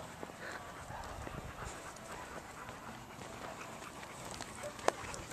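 Dogs panting with footsteps on a dirt track, and a sharp click near the end.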